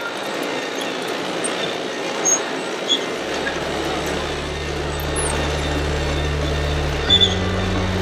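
Busy exhibition-hall background noise with a few light clicks. About three seconds in, a low sustained drone comes in, and it steps up in pitch near the end.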